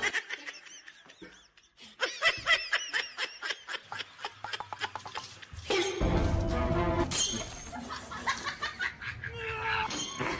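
Laughter in a quick run of short bursts, starting about two seconds in.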